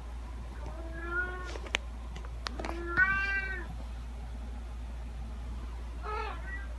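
Domestic cat meowing three times: a first meow, a louder second one about three seconds in, and a short, fainter one near the end. A few sharp clicks come between the first two meows, over a steady low hum.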